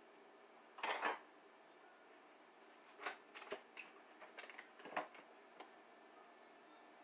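Light kitchen handling noises: a short rustle about a second in, then a run of small clicks and knocks between about three and five seconds in, as a cardboard box of Bisquick baking mix is picked up and opened.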